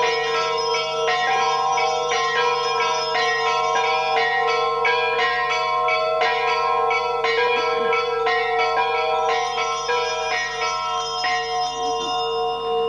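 Bells ringing continuously, with many overlapping pitched strikes in quick succession, rung at the elevation of the chalice during the consecration at Mass. The higher strikes thin out near the end while the lower ringing goes on.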